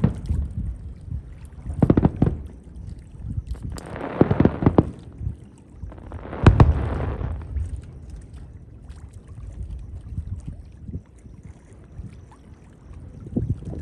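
Aerial fireworks bursting: deep booms about two seconds in, a spell of crackling around four seconds, and the loudest bang a little past six seconds, trailing off in a crackling hiss, with smaller pops near the end.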